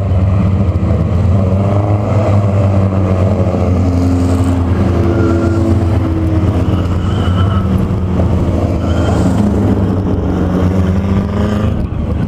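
Engines of a pack of short-track stock cars running at pace speed behind a pace truck, a loud steady low drone, with engine notes sliding up and down as cars pass close by.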